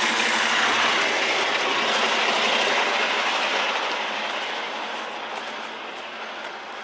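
A loud, steady hiss that fades gradually over several seconds.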